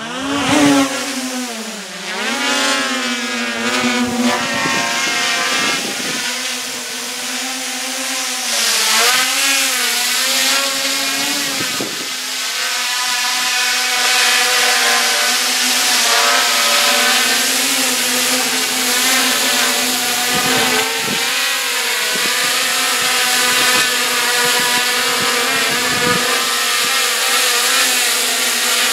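Traxxas Aton quadcopter's motors and propellers whining in flight, the pitch swooping up and down as the throttle changes through the first half, then holding steadier as it hovers.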